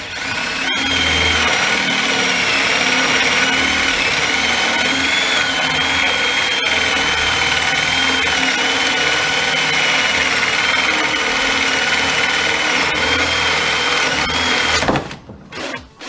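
Parkside cordless hammer drill-driver in drill mode at speed 2, running steadily under load as a 32 mm Forstner bit bores through a wooden board. The motor whine wavers slightly and stops about 15 seconds in.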